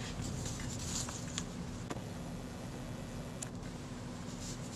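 A few faint, light clicks and taps of small tools and parts being handled while reassembling a camera shutter, over a low steady hum.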